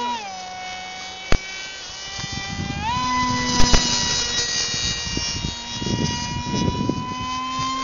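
Electric outrunner motor spinning twin wooden propellers: a steady high whine that drops in pitch at the start and rises again about three seconds in as the motor speed changes. Gusts of wind buffet the microphone, and there are a few sharp clicks about a second and a half and almost four seconds in.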